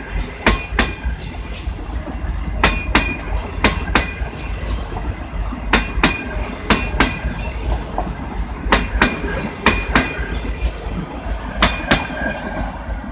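Passenger coaches rolling past close by: their wheels clack over the rail joints in pairs, about a quarter second apart, one pair every second or two, over a steady rumble, with a faint wheel squeal between the clacks.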